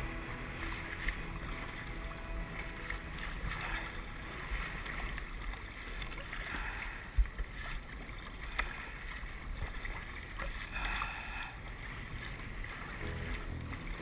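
Water splashing and lapping around a plastic kayak as it is paddled through choppy swells, with wind rumbling on the microphone. A sharp knock about seven seconds in, and a lighter one a second and a half later.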